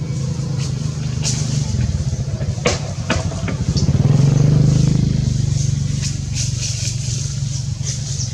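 A motor engine running with a steady low hum. It grows louder about four to five seconds in, then eases off. A few sharp clicks come near the middle.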